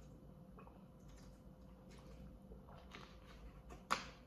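Quiet drinking from a plastic water bottle, with faint small clicks and crinkles, then a sharp plastic click near the end as the bottle is lowered and capped.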